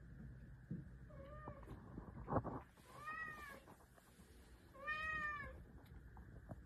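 Domestic cat meowing three times while carrying a plush octopus toy in its mouth. Each meow is a drawn-out call that rises and then falls. The first is faint, about a second in, and two louder ones follow at about three and five seconds. A single sharp thump comes about two seconds in.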